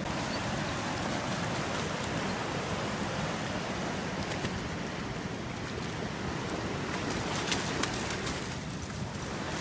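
Fast, flood-swollen creek rushing and churning over shallows in a steady wash of water noise, with a few light clicks near the end.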